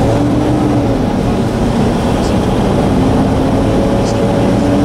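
Steady, loud vehicle rumble with a faint low hum running through it.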